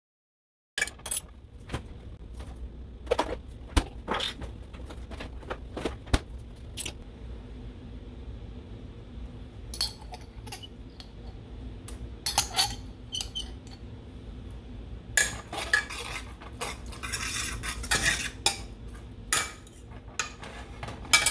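Cooking utensil scraping and clicking against a nonstick pan as diced onion and celery are stirred, with scattered sharp knocks over a faint steady hum and a busier stretch of scraping near the end.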